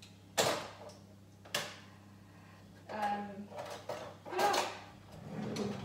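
Rummaging through a kitchen drawer of cutlery and utensils: a few separate metal clatters and knocks, spaced a second or so apart.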